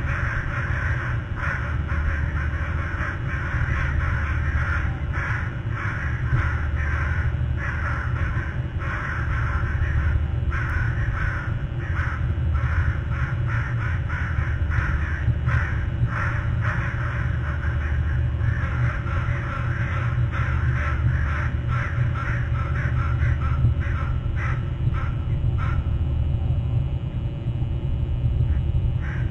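Stirred-up crows cawing loudly and repeatedly, many calls in quick succession and overlapping, thinning out near the end. A steady low hum runs underneath.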